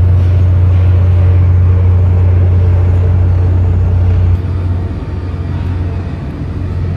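Heavy diesel engine of a Liebherr LR1300 crawler crane running with a steady low drone, which drops somewhat in level about four and a half seconds in.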